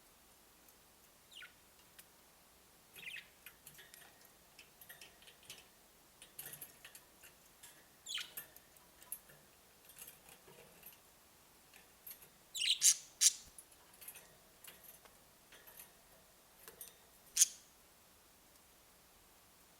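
Budgerigars chirping in short, scattered high calls, with a louder cluster about two-thirds of the way through and one sharp call near the end.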